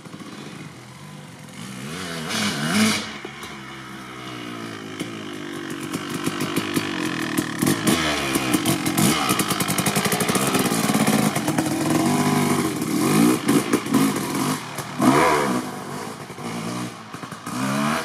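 Kawasaki KX250 single-cylinder two-stroke motocross bike (2003) with an FMF Gnarly exhaust riding by, its engine revving up and down again and again. Its loudest throttle bursts come about two and a half seconds in and again about fifteen seconds in.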